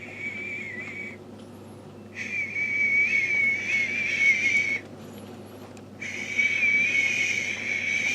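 A newborn baby's high, thin, wavering cries or squeals. One trails off about a second in, then two longer drawn-out bouts follow with short breaks between.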